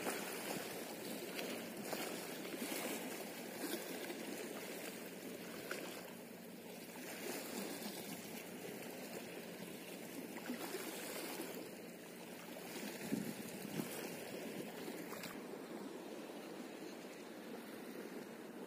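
Sea water washing and splashing against shoreline rocks, a steady rushing that rises and falls a little.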